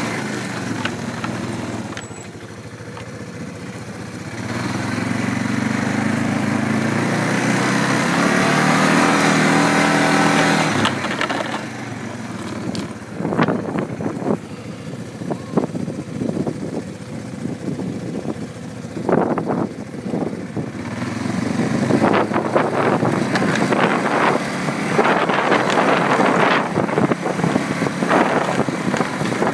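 A small engine running, its pitch climbing over the first ten seconds, followed by irregular knocks and rattles.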